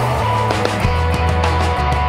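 Rock music with drums and a heavy bass line.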